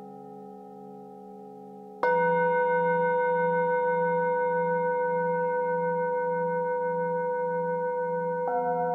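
Metal singing bowls ringing. One is struck with a mallet about two seconds in and rings loud and long with a slow wavering beat. Another is struck near the end, adding new tones over it.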